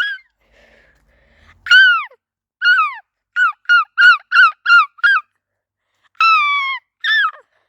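Seagull calling loudly close by: a gull's long call, a few single downslurred cries, then a fast run of about six yelping notes at around three a second, then one longer drawn-out cry and a last short one.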